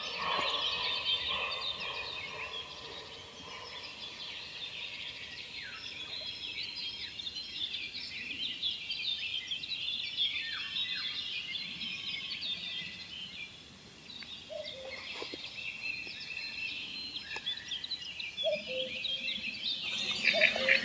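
Several wild songbirds singing at once, a dense chorus of overlapping chirps and trills that grows louder near the end.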